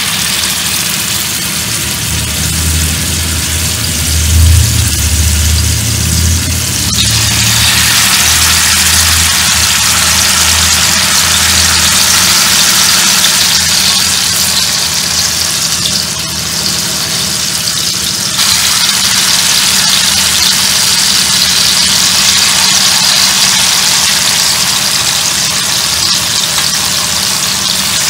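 Hot oil sizzling steadily around masala-coated kilanga fish shallow-frying on a cast-iron tawa. The sizzle steps up louder about seven seconds in and again at about eighteen seconds as more fish are laid into the oil. A low hum runs under it for the first dozen seconds.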